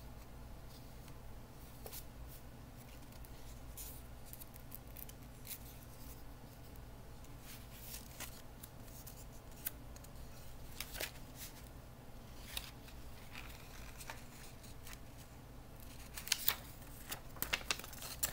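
Pages of a thin paper booklet rustling and crinkling as they are handled and turned, in scattered faint clicks with a cluster of louder crinkles near the end, over a low steady hum.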